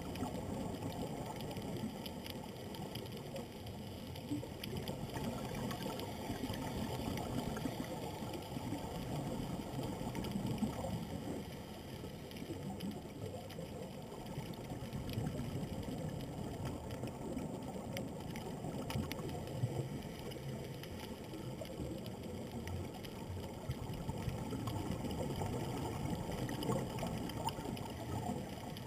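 Underwater ambience heard through a camera's waterproof housing: a steady, muffled rush of water, mostly low, with faint scattered clicks.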